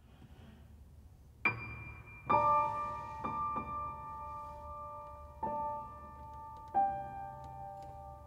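Piano playing a slow, sparse passage: about six single notes and chords struck a second or more apart, each left to ring and fade.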